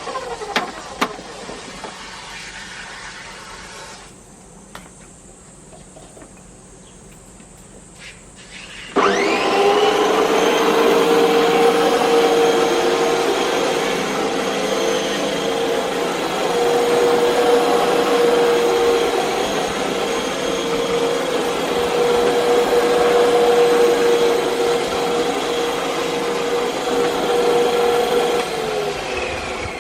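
Makita MLM-2851 electric reel lawn mower starting up about nine seconds in with a quick rising whine, then running with a steady whine and reel noise, and winding down with a falling tone near the end. The mower has an abnormal noise that the owner thinks comes from a worn bearing on the reel blade shaft.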